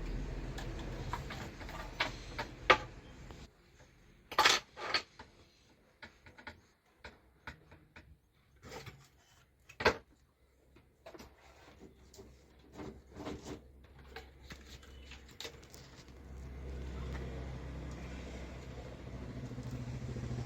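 Scattered sharp clicks and clinks of small hard tools and parts being handled, several knocks standing out about 3, 4½ and 10 seconds in, over a low steady hum that drops away after the first few seconds and returns near the end.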